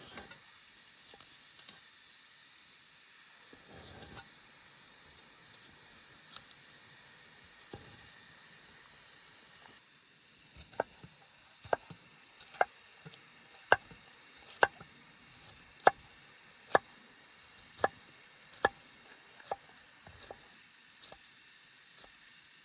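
Knife chopping on a cutting board, sharp evenly spaced cuts about one a second starting about halfway in, over a faint steady hiss.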